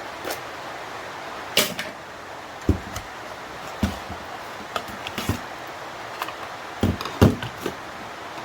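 Irregular clicks and knocks of a small plastic electronics casing and its parts being handled and pulled apart, two of them louder, about one and a half and seven seconds in, over a steady hiss of rain.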